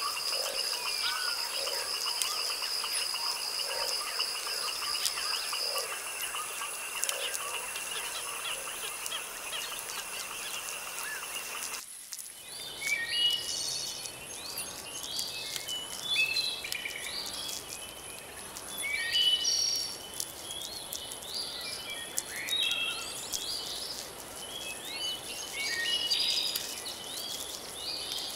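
Recorded nature soundscape: for about the first twelve seconds, insects trill steadily at a high pitch with repeated short frog calls, then the recording switches abruptly to birds singing, many short chirps and phrases over a faint background hiss.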